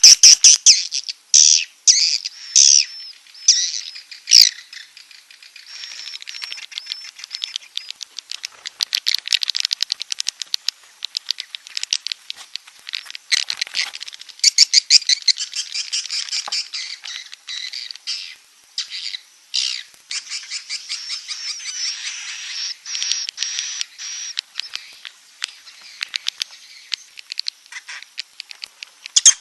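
Swiftlet lure-call recording: a dense, continuous stream of rapid high chirps and twitters broken by fast clicking trills, the kind of call track played to draw swiftlets into a nesting house.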